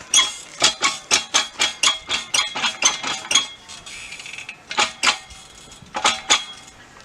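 Metal clanking from an outdoor arm-exercise machine being worked by hand: a quick run of ringing clinks about four a second, a short pause, then a few more clanks near the end.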